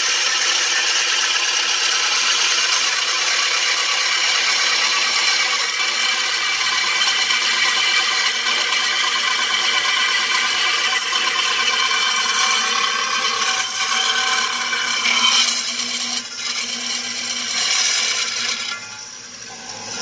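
Metal-cutting bandsaw blade cutting through a small 80 mm steel I-beam: a steady grinding hiss with high ringing tones from the blade in the cut. It changes and gets quieter over the last couple of seconds as the blade nears the bottom flange.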